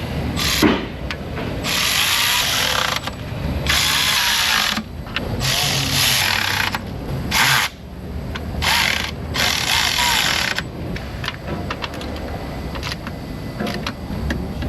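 A power tool, a drill or power ratchet, running bolts in. It comes in about six short bursts of up to a second each over the first ten seconds or so, followed by lighter clicks of tool handling.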